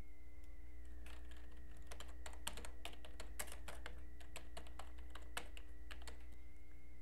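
Typing on a computer keyboard: a run of key clicks that starts about a second in and stops near the end, over a steady background hum.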